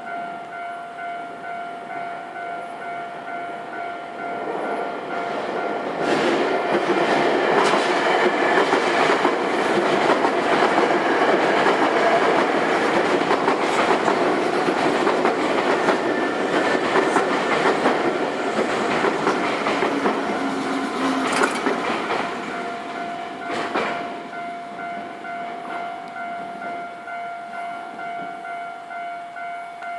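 Japanese level-crossing warning bell dinging steadily while a Nankai Railway electric train passes through the crossing, its wheels clacking over the rail joints for about eighteen seconds. The bell keeps ringing after the train has gone by.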